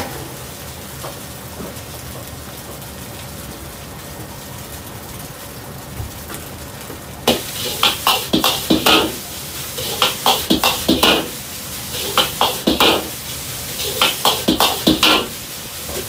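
Steady hiss of fried rice frying in a wok over a burner at full flame, then, from about seven seconds in, a metal ladle clanking against the wok in quick bursts of strikes as the rice is broken up with the back of the ladle and tossed.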